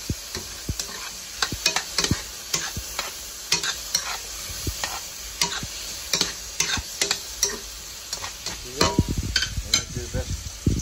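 A utensil scraping and clacking against a skillet as sliced vegetables are stir-fried, with irregular clicks over a steady sizzle.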